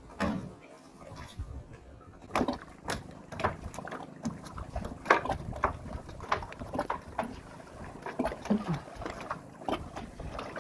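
Irregular knocks and clicks, a few each second, of things being handled, with brief faint pitched sounds among them.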